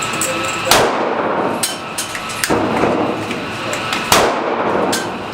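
Pistol shots in an indoor shooting range, each one echoing off the hall: a loud shot about a second in and another about four seconds in, with fainter shots between.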